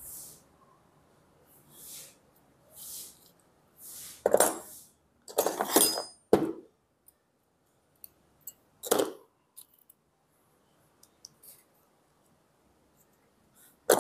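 Daiwa Tatula baitcasting reel being taken apart: a steel pick and small metal parts clicking and scraping against the reel's frame and side plate. The clicks come in short, separate bursts, the loudest about four to six seconds in, another around nine seconds and one near the end.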